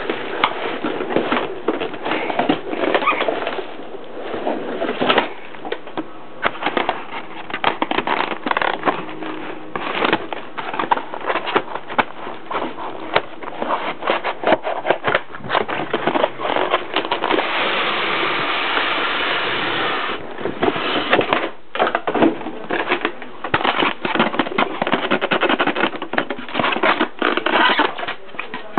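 Cardboard box and foam packaging being handled: rustling, scraping and many small knocks and taps, with a longer continuous rub a little past halfway.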